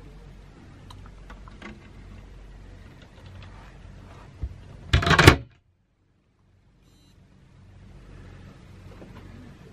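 Handheld camera handling noise over a low steady hum: faint clicks and knocks, then a loud, brief rubbing burst about five seconds in. The sound then cuts out almost completely for about two seconds before the hum returns.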